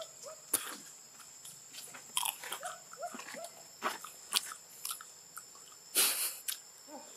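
Scattered crunches and clicks, the loudest a short noisy crunch about six seconds in, with a few short rising chirps, over a steady high-pitched insect drone.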